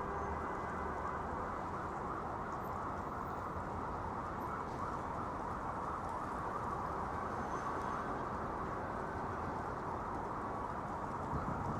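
Steady city street noise: a low, even hum of traffic and urban background.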